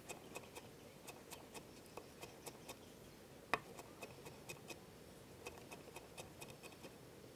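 Kitchen knife chopping ginger finely on a wooden cutting board: faint, quick knocks of the blade on the board, about three or four a second, with one louder knock about halfway through.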